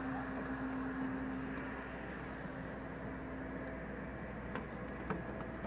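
Boat machinery running steadily: a constant hum and hiss, with a low steady tone that fades away about four seconds in, and a couple of faint knocks near the end.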